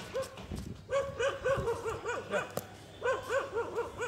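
Dog whining and yelping in short, high, rising-and-falling cries, coming in clusters of two to four, eager for the ball during play.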